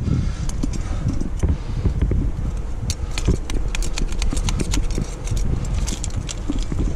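Aluminium carabiners and quickdraws on a climbing harness clinking and jangling as they are handled. The quick metal clicks come thickest in the second half, over a steady low rumble on the microphone.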